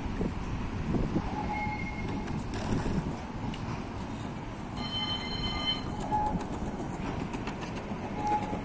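CAF Urbos 3 tram approaching on street track, a steady low rumble that grows as it draws near, with a brief high-pitched ringing tone lasting about a second, about five seconds in.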